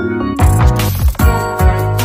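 Background music: held keyboard notes, then a drum beat with deep kick drums and hi-hats comes in about half a second in.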